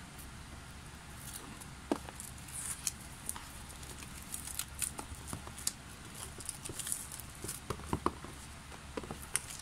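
Plastic shrink-wrap being peeled off a CD album, with irregular crinkles, crackles and small ticks over a faint low hum.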